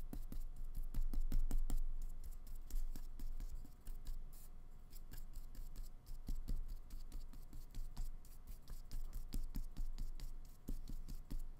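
Flat paintbrush scrubbing acrylic paint onto paper in quick short strokes: a dense, irregular run of dry scratches.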